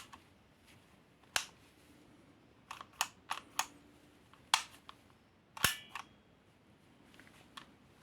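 About nine sharp metallic and plastic clicks and clacks from a CZ-75D Compact spring airsoft pistol being handled and worked, some in quick pairs.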